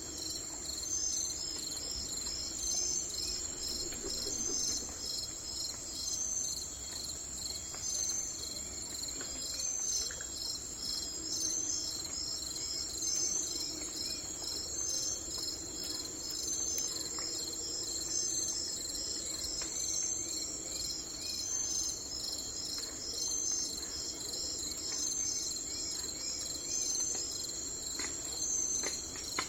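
Chorus of crickets: a steady high-pitched trill, with a pulsing call repeating about once a second.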